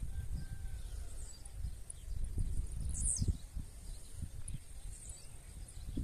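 Wind buffeting the microphone with an uneven low rumble, and faint bird calls, including a short high chirp sweeping downward about three seconds in.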